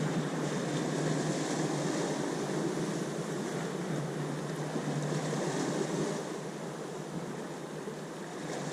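Ocean waves washing ashore in a continuous surf hiss. The sound swells and eases slowly, dipping a little near the end.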